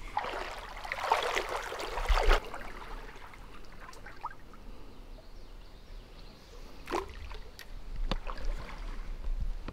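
A small river flowing steadily, with a loud rush of noise in the first couple of seconds and a few sharp clicks near the end.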